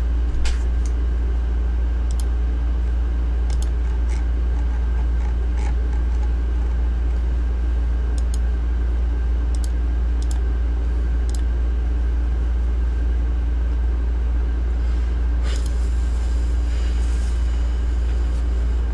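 A retractable pen being clicked, about ten sharp clicks at irregular intervals, over a steady low hum.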